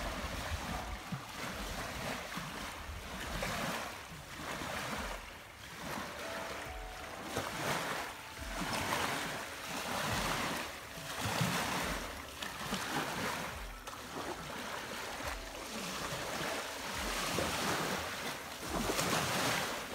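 Choppy lake waves washing and breaking on a gravelly shore, surging and falling back every second or two, with gusts of wind buffeting the microphone.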